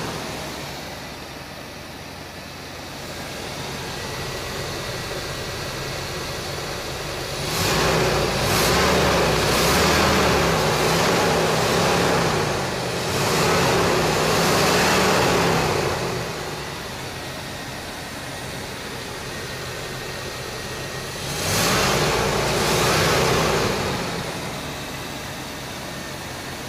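Chevrolet 305 small-block V8 with an Edelbrock carburetor idling, its throttle blipped by hand at the carburetor linkage. The engine revs up and falls back to idle in three spells: a few seconds in the middle, again soon after, and once more near the end.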